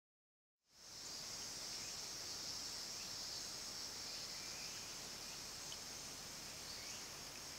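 Steady insect chorus, a high even buzz that cuts in about half a second in after total silence, with a few faint short chirps over it.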